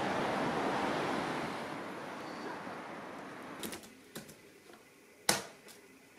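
Steady outdoor hiss that fades away over the first three seconds. Then a few separate clicks of laptop keyboard keys being typed, the loudest about five seconds in.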